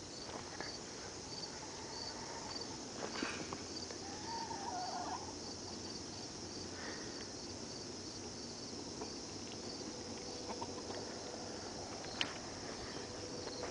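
Crickets chirping in a steady, evenly spaced rhythm over a continuous high insect hiss. A faint wavering call comes about four seconds in, and a single sharp click about twelve seconds in.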